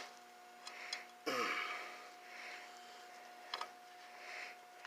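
Faint metallic clicks and a short scrape as bolts are handled and started by hand in an engine motor mount, over a steady faint hum.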